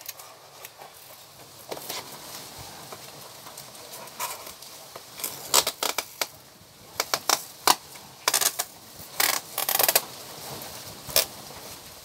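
Adhesive tape ripped off the roll in a series of short, sharp tears, with cardboard being handled and wrapped around the forearm.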